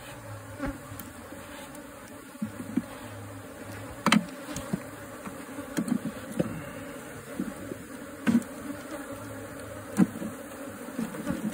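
Honeybees from an opened wild colony buzzing steadily around the comb. A few sharp knocks and clicks at intervals of about two seconds come from the combs and hive frames being handled.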